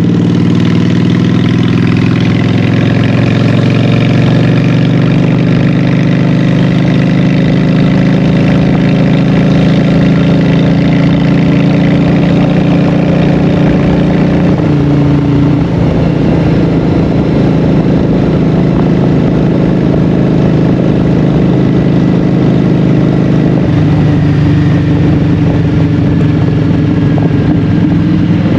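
Honda Shadow 750's V-twin engine running loud through Vance & Hines Short Shots exhaust pipes while the motorcycle is ridden. The engine note rises a little at first and changes pitch about halfway through and again near the end.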